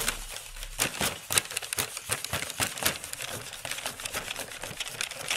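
Clear acrylic block rubbed and pressed over tracing paper laid on a sheet of polymer clay: dense, irregular small clicks and paper rustling.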